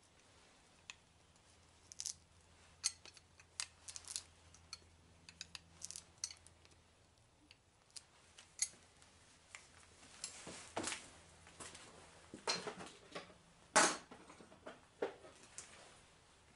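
Scattered small clicks and metallic clinks of hand tools and machine parts being handled, sparse at first and busier in the second half, over a faint low hum.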